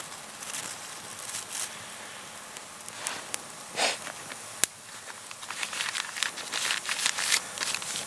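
Small campfire of dry twigs just catching, crackling with sharp pops, one loud snap about halfway through, and the crackle growing busier over the last few seconds as the flames take hold.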